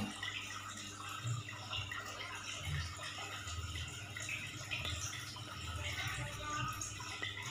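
Aquarium water trickling and dripping, over a low steady hum.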